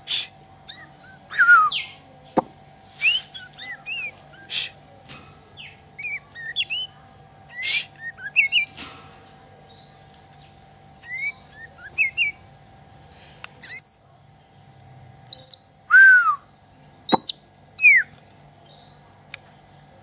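White-rumped shama (murai batu, Bornean type) singing: a varied run of clear whistled notes that glide up and down, mixed with sharp clicking notes. The song pauses for about a second and a half near the middle, and the loudest phrases come in the second half.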